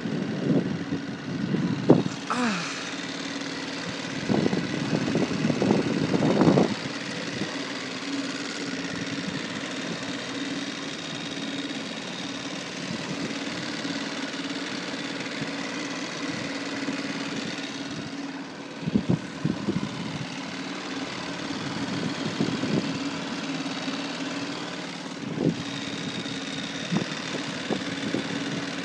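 A small boat's engine running steadily, a constant hum throughout. Irregular louder rumbles break over it in the first few seconds and again twice later on.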